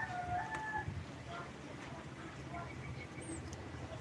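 A rooster crowing in the background, its long held final note ending about a second in.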